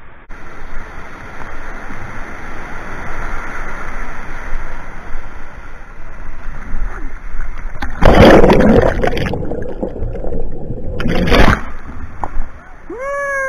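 Rushing white water churning around a kayak, heard close from a camera on the boat, with two loud splashes of water over it about eight and eleven seconds in. Near the end a short pitched sound rises and falls.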